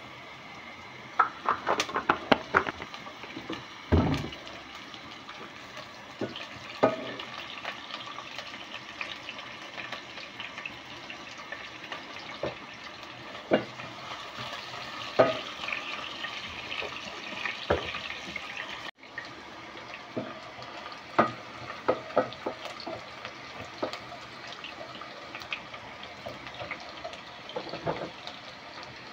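Red onions frying in a sufuria with a steady sizzle, with scattered knocks and clinks of a spoon stirring against the pot.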